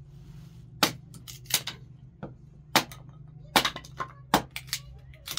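A small hand tool struck down again and again on something on the ground: about a dozen sharp, clinking blows at an uneven pace.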